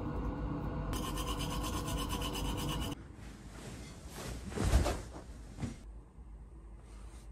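Teeth being brushed with a toothbrush: rapid repeated scrubbing strokes that stop abruptly about three seconds in. Quieter rustling of a duvet and bedding follows, loudest about halfway through.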